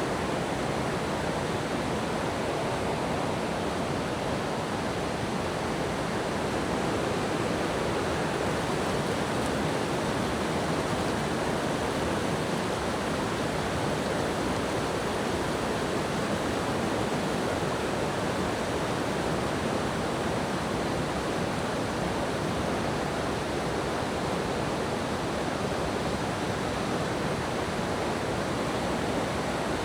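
Waterfall and river cascades rushing steadily: an unbroken, even roar of falling water with no change in level.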